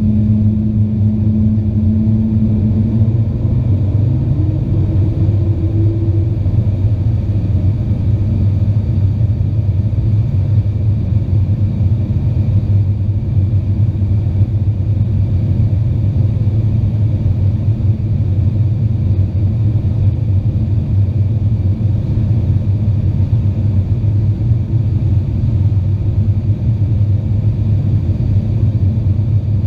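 Steady low cabin rumble inside an Avro RJ85 airliner, the noise of its four turbofan engines and airflow heard from a passenger seat. A humming tone fades out about three seconds in, and another tone rises briefly a little later.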